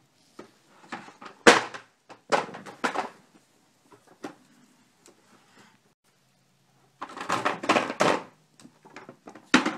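Hollow plastic knocks and clatter from a child's toy basketball hoop, its plastic basket piece pulled off, knocked about and bumped along the floor. A loud knock about a second and a half in, two more around two and three seconds, then a run of clattering knocks near the end.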